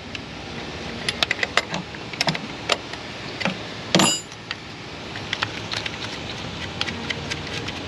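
Scattered small metal clicks and clinks of a wrench and hardware as the nut is worked off the alternator's power-wire terminal, with one louder metal clank that rings briefly about four seconds in.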